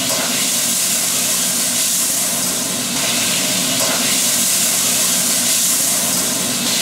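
Hot fat and flour sizzling steadily in a frying pan as they are whisked together into a roux.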